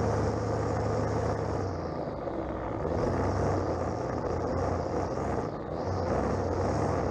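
String trimmer running at high speed, its line cutting grass along a lawn edge; the high whine dips briefly a couple of times as the line meets the grass.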